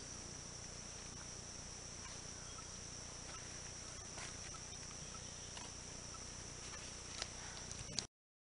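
Steady high-pitched drone of forest insects, one unbroken whine over a faint rustling background. Near the end come two sharp clicks, and then the sound cuts off suddenly.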